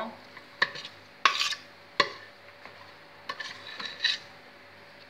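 Utensil knocking and scraping against a stainless steel bowl as sticky sesame-honey mixture is scraped out: three sharp clinks in the first two seconds, then a run of short scrapes.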